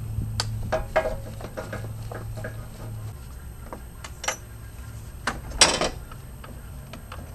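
Scattered clicks and knocks of a screwdriver against the hard plastic of a 2018 Honda Fit's lower grille as its screws are taken out, with one louder, brief scrape of plastic about five and a half seconds in.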